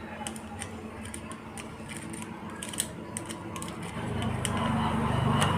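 Light metallic clicks and taps from hand work on a motorcycle engine's timing chain and sprocket. A low engine rumble swells in over the last second and a half.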